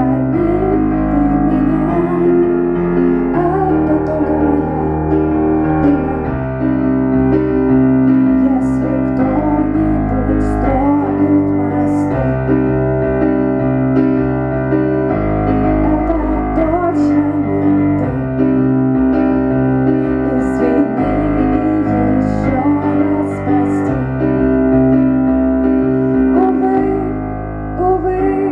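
Kurzweil stage piano playing sustained chords that change every second or two, with a woman singing over it in several stretches.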